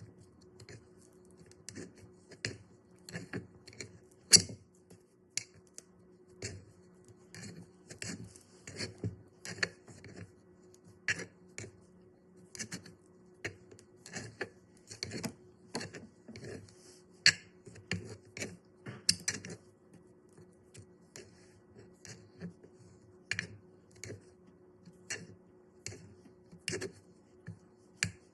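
Play dough being squished and mixed, giving irregular sharp sticky clicks and pops, one to three a second, over a faint steady hum.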